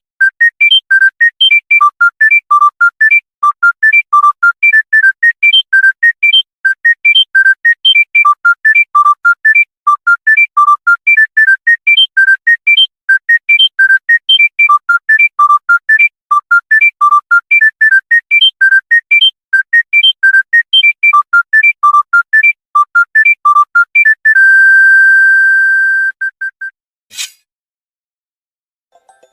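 Monophonic mobile-phone ringtone: a fast melody of short, bright beeping notes played one at a time. About 24 seconds in it ends on a long held note, followed by a couple of short blips and a click.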